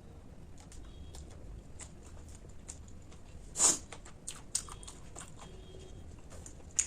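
Close-up eating sounds: a person chewing with small wet clicks, and one loud crunchy bite about three and a half seconds in, followed by a sharp click near the end.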